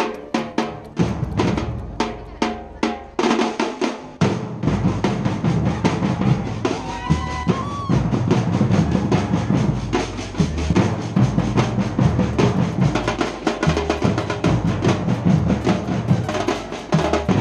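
A street percussion band playing white marching drums together. The first few seconds are separate, spaced strokes, then about four seconds in the whole group breaks into a dense, continuous rhythm.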